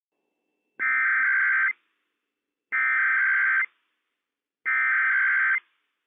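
NOAA Weather Radio EAS SAME header: three bursts of digital data tones, each about a second long and about a second apart. This is the coded header that tells weather radios and broadcast alert equipment that a Required Weekly Test message is starting.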